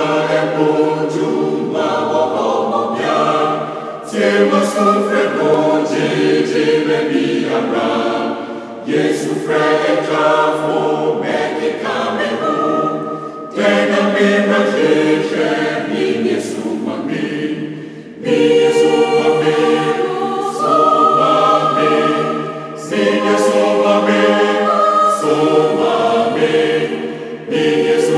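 Choir singing in sustained phrases about four to five seconds long, each ending in a brief break.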